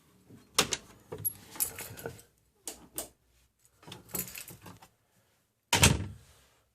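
An irregular run of rattles and clicks with several knocks, the loudest a single sharp knock near the end.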